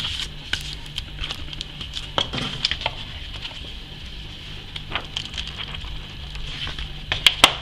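Paper booklets being handled and their pages flipped: rustling and crinkling with many short sharp paper crackles, loudest in a quick cluster near the end, over a steady faint hum.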